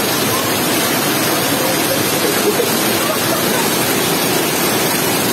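Heavy summer rain pouring down steadily, a loud, even hiss with no letup.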